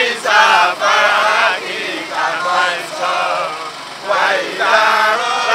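Voices chanting a song in short phrases, each note held for about half a second to a second with a wavering pitch.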